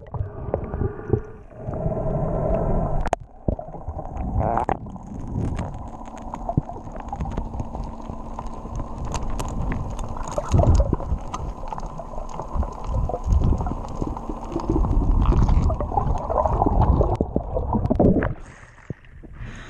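Muffled underwater sound heard through a camera's waterproof housing: water churning and gurgling, with frequent knocks and bumps from hands and movement against the case. It goes quieter for a moment near the end.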